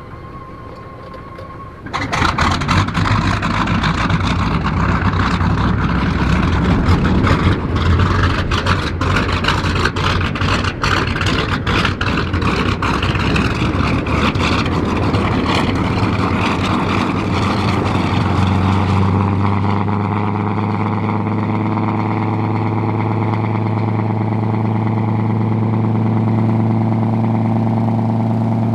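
Lockheed P-38 Lightning's Allison V-1710 V-12 engine starting about two seconds in with a sudden loud, rough, crackling run, then settling into a steady idle at about twenty seconds.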